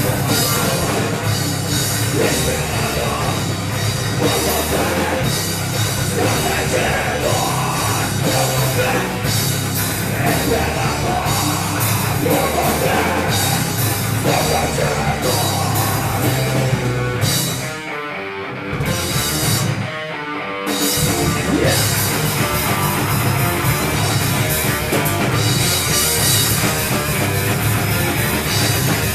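Live heavy rock band playing loud distorted guitars, bass and a drum kit, with two brief breaks in the full band near the middle.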